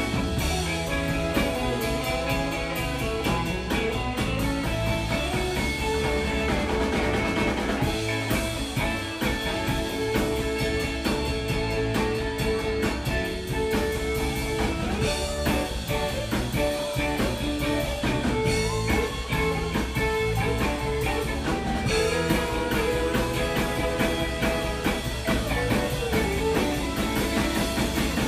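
Live rock band playing, with electric guitars and a drum kit over bass, recorded from within the audience in a club.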